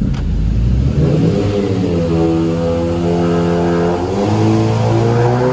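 A 2015 Honda Civic Si's 2.4-litre four-cylinder engine revving up under load on a dyno pull through an aftermarket exhaust with a silencer insert fitted. The pitch climbs steadily, drops briefly about four seconds in, then climbs again.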